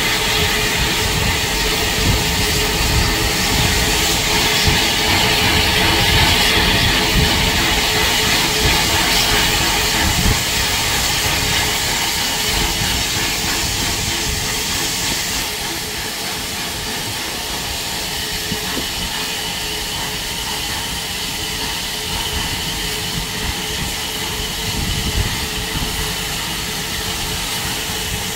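Battle of Britain class steam locomotive 34067 Tangmere pulling away with its train: a steady hiss of steam over the rumble of the train, the hiss dropping away about halfway through.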